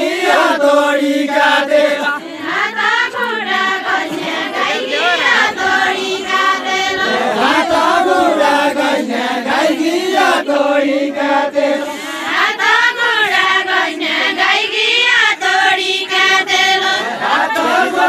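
A group of voices singing deuda, the Far-Western Nepali folk song sung in a linked-arm circle dance. They chant a repeated melodic phrase that rises and falls every few seconds.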